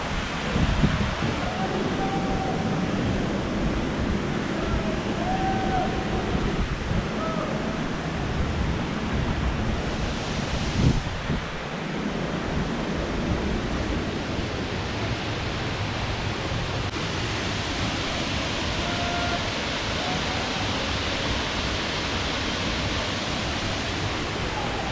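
Waterfall rushing, a steady, even roar of falling water, with a brief knock about eleven seconds in.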